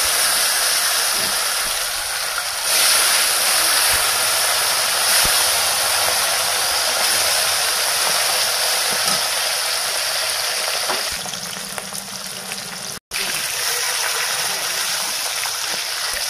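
Katla fish pieces, rubbed with turmeric and salt, sizzling steadily in hot oil in a kadai while they fry. The sizzle cuts out for an instant about 13 seconds in, then carries on.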